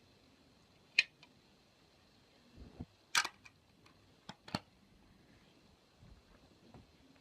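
A few sharp clicks and knocks of small objects being handled: one about a second in, a louder cluster around three seconds, and two more around four and a half seconds.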